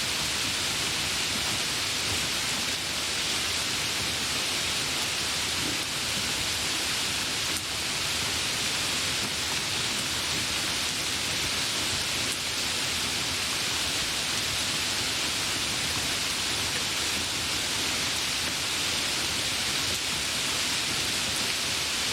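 Light rain falling, a steady even hiss of fine drops.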